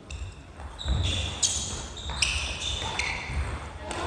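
Court shoes squeaking and feet thudding on a wooden gym floor during a badminton singles rally, with a few sharp hits, the loudest about a second and a half and two seconds in, from rackets striking the shuttlecock.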